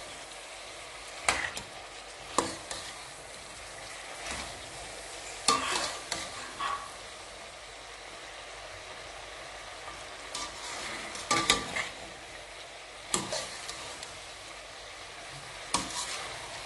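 Diced carrots, green peppers, onions and liver sizzling steadily in groundnut oil and butter in a frying pan. Every second or few, a stirring spoon scrapes and knocks sharply against the pan.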